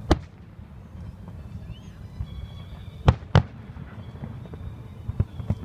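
Aerial fireworks shells bursting: one sharp bang right at the start, two more a third of a second apart about three seconds in, then a few fainter pops near the end, over a steady low rumble.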